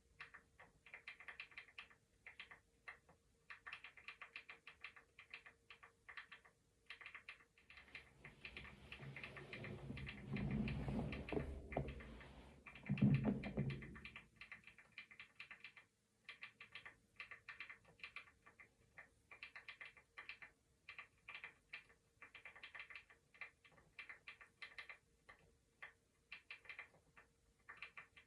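Computer keyboard typing: quick, irregular key clicks in runs, over a faint steady hum. From about 8 s in, a louder low rustling swell builds and ends in a thump near 13 s, then the typing carries on.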